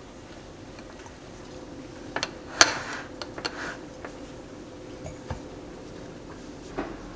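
Sharp clicks and knocks of glass food containers being handled on a stone countertop, the loudest a single knock about two and a half seconds in, with a few lighter taps after it and again near the end; a steady low hum runs underneath.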